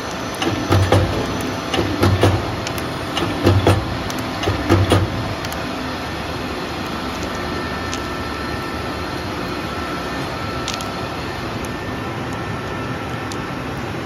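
Hose assemblies with metal ferrules being handled, knocking and clicking together about once a second for the first five seconds, over a steady machine hum and workshop noise that runs on alone afterwards.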